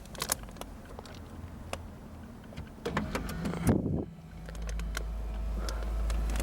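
A few scattered clicks, a brief louder noise about three and a half seconds in, then a small electric motor starts a steady hum: the Jeep Cherokee's power radio antenna motor driving the mast, working again after its wiring was repaired.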